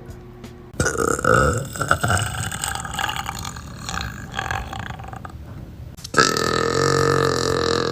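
Young women burping. One loud burp comes about a second in, and a second, long drawn-out burp starts about six seconds in.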